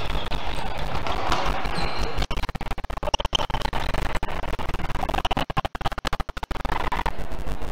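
Badminton doubles rally: rackets hitting the shuttlecock over steady arena background sound.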